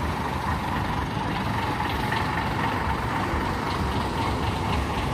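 Tour bus's Nissan Diesel PE6 turbo-diesel straight-six running steadily at low speed as the bus rolls slowly past.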